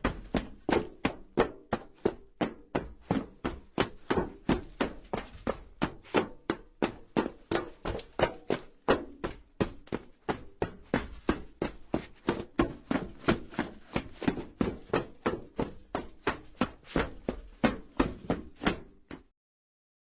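Running footsteps on a metal roof: quick, even footfalls, about three to four a second, each with a short metallic ring. They stop near the end.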